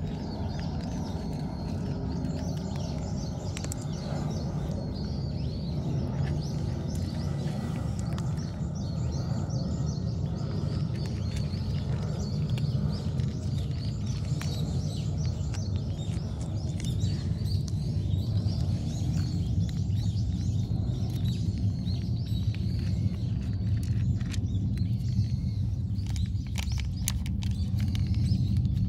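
Small birds chirping over and over above a steady low outdoor rumble.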